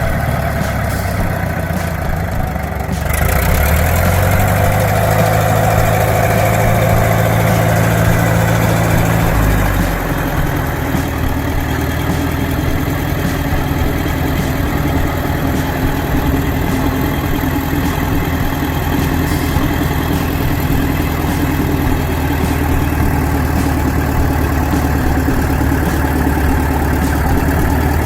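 Large engine of heavy machinery running. About three seconds in it speeds up and holds a higher note, drops back about ten seconds in, then runs steadily at idle.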